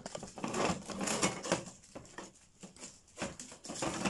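Crumpled aluminium foil crinkling and rustling in a run of short, irregular bursts as toy wrestling figures are handled and tangled in foil 'barbed wire', with small sharp clicks among them.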